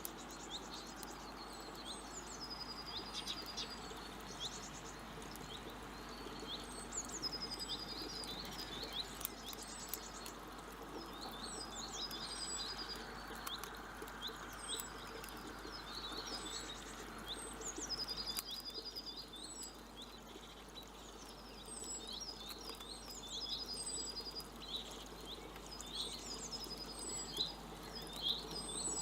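Small songbirds singing and chirping. One song phrase repeats every few seconds, a high note sliding down into a quick high trill, among many short high chirps, over a steady background hum of noise.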